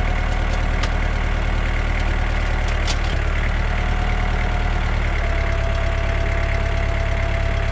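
Kubota tractor's diesel engine running steadily. A faint steady whine comes in about five seconds in.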